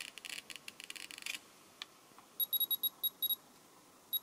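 A Geiger counter's Geiger–Müller tube clicking rapidly through its loudspeaker for about the first second and a half, then stopping. After a short pause, the radiation sensor's electronic beeper gives a quick run of short, high beeps, louder than the clicking, with one more near the end.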